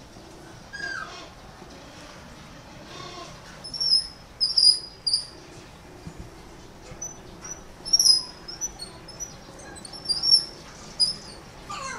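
Short, high-pitched animal chirps coming in quick little groups, about a dozen of them, starting about four seconds in, with a few fainter, lower calls before them.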